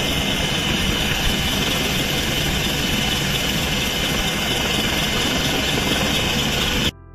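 Loud, steady turbine and rotor noise inside the cabin of an EH-101 Merlin search-and-rescue helicopter, a strong hiss over a low thrum. It cuts off suddenly near the end.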